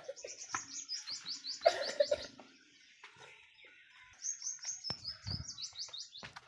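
A small songbird singing two runs of quick, high, downward-slurred notes, each about two seconds long, with a pause between. A brief, louder, lower sound comes about two seconds in.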